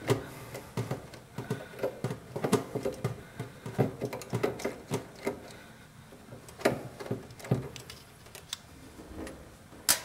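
Irregular small clicks, taps and light rattles of metal parts being handled as the flame sensor's mounting screw is removed from a gas furnace burner assembly. The clicks are dense at first and thin out, with one sharper click at the very end.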